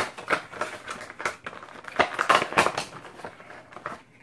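Cardboard and plastic packaging of a Funko Dorbz vinyl figure crackling and rustling as the box is opened and the figure pulled out. It makes a quick run of snaps and crinkles, loudest about two seconds in.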